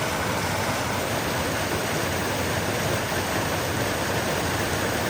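Steady rushing of a storm-flooded creek running high after heavy rain.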